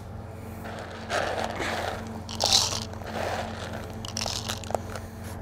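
Intermittent rustling and scraping of fishing tackle being handled as a carbon pole is unshipped and a bait cup picked up, with a few light clicks.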